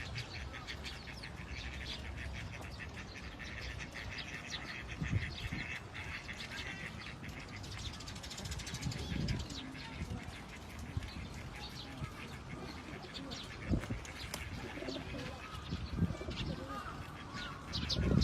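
Birds calling, a dense run of short high chirps that thins out after the first half, with a few scattered low thumps.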